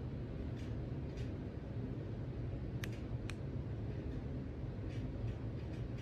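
Two sharp clicks of remote-control buttons being pressed, about half a second apart and about three seconds in, with a few fainter clicks before them, over a steady low hum.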